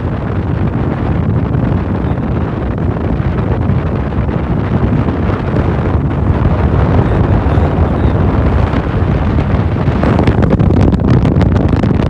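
Wind buffeting the microphone: a loud, steady low rumble, with a run of crackles in the last two seconds.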